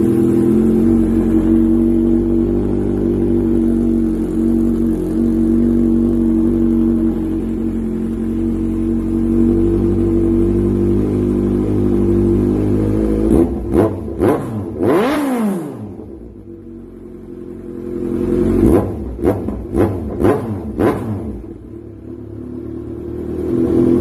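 Kawasaki Z1000's inline-four through an SC Project CR-T titanium exhaust with a 4-1 header, idling steadily and loud. About halfway through it is revved once, rising and falling back, and a few seconds later given a string of quick throttle blips before settling back to idle.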